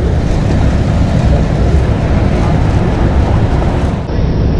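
Loud, steady low rumbling noise on the camera microphone while a jacket sleeve and arm brush over the camera. The higher hiss drops away about four seconds in.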